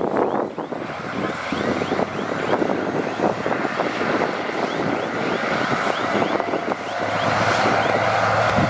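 Heavy earthmoving machinery working: a diesel engine running under a dense rattle and clatter of machinery and material, with small repeated squeaks. About seven seconds in the engine note becomes steadier and louder.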